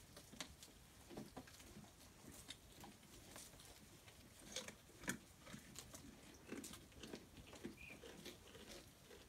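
Goats eating dry fodder stalks: faint, scattered crunching and rustling as they bite and pull at the stalks, with a few sharper crunches.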